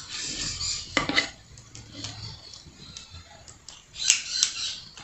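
A metal spoon scraping thick peanut candy mixture out of a cast-iron pot, with clinks against the pot's side and a sharp click about a second in. A louder run of clicks and scrapes comes about four seconds in.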